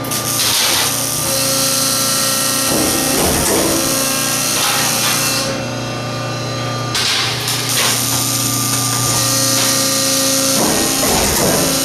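Metal shop work noise: a steady loud hiss over a constant electrical hum. The hiss thins out about five and a half seconds in and comes back strongly about a second and a half later.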